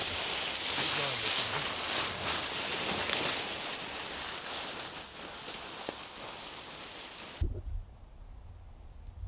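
Footsteps shuffling and rustling through dry fallen leaves as two people walk with a long dead pole, growing slowly fainter as they move away. It cuts off abruptly about seven seconds in, leaving a much quieter low rumble.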